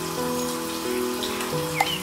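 Water trickling and pattering from a miniature water pump's spray pipes and overflow channel, under background music with a simple stepped melody. A sharp click near the end.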